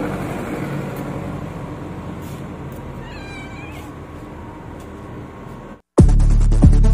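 A cat meows once, a drawn-out wavering call about three seconds in, over faint background noise. Near the end the sound cuts out briefly and loud electronic music starts.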